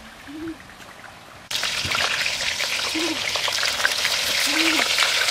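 Whole duck frying in hot oil in a wok: loud, steady sizzling and crackling that starts abruptly about a second and a half in, after a quieter stretch of faint running water.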